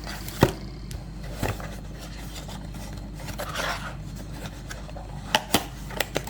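Cardboard blind box packaging being handled and opened: a few sharp clicks and taps, the loudest about half a second in and a quick pair near the end, with soft rubbing and scraping of card in between.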